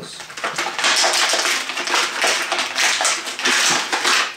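Plastic toy packaging crackling and rustling as it is handled, in irregular surges, while action figures are worked free of it.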